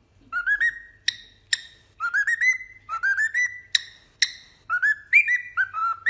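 Cockatiel whistling a quick, repeated phrase of short rising notes, with a few sharp high chirps mixed in.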